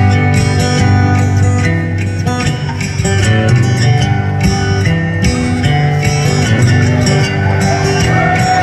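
Solo amplified acoustic guitar playing live through a theatre PA, recorded on a phone from the audience.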